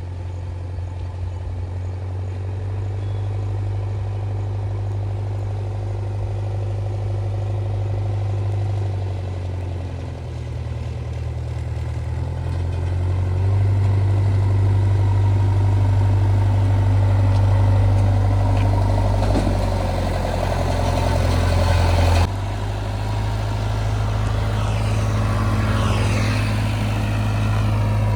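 Diesel engine of heavy earthmoving or farm machinery running steadily under work, its low drone growing louder about halfway through and changing abruptly about three-quarters of the way in.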